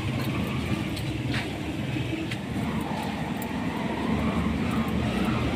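Steady low mechanical rumble with a few light taps.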